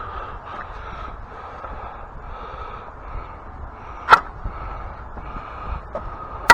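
Steady, faintly pulsing background noise with two sharp knocks, one about four seconds in and a louder one at the end.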